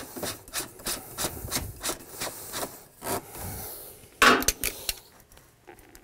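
Black plastic threaded drain adapter being screwed by hand onto a 3-inch cleanout, the plastic threads grating in short strokes about three a second as it is turned tight, with one louder scrape about four seconds in.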